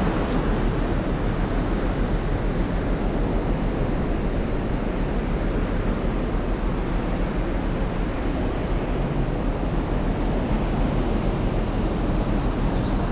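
Wind blowing across the microphone over the wash of sea surf on the beach: a steady, even noise that does not break.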